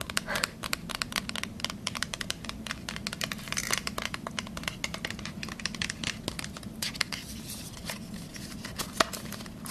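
Fingers tapping, scratching and handling a small paperboard lip tint box: a dense run of crisp taps and crinkles, with one sharper click near the end.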